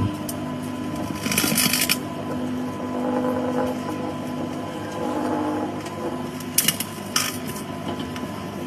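Microwave oven running with a steady hum, broken by a few short crackling bursts: one lasting most of a second about a second in, and two brief ones near the end, from the earbuds arcing inside.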